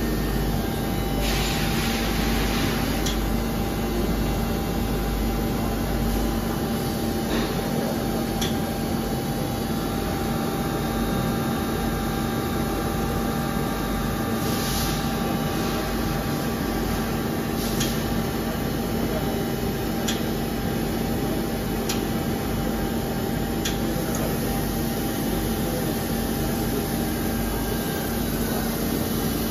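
Cincinnati CFV-1300 vertical machining centre standing powered up and idle, its spindle not cutting: a steady machine hum with a constant low tone. A brief hiss comes about a second in and again about halfway, with a few faint clicks.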